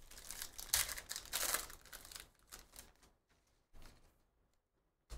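Trading card pack wrapper being torn open and crinkled, loudest over the first two seconds, followed by a few shorter rustles and a brief sharp sound near the end.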